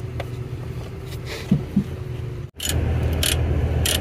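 A vehicle engine idling steadily, with a few knocks and sharp clicks over it. The sound breaks off for an instant about two and a half seconds in and comes back louder.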